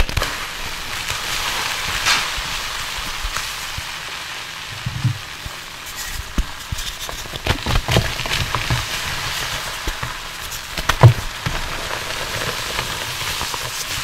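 Water-soaked reformed gym chalk sizzling as it is squeezed and crumbled by hand: a steady hiss with soft crunches, thickest in the middle and loudest about eleven seconds in.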